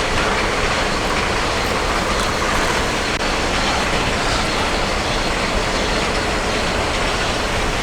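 Steady rumble of bowling balls rolling on the lanes of a bowling centre, with no distinct pin strike.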